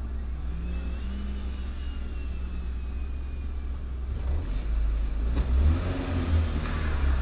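Car engine heard from inside the cabin, a steady low hum that grows louder and more uneven from about four seconds in as the car accelerates.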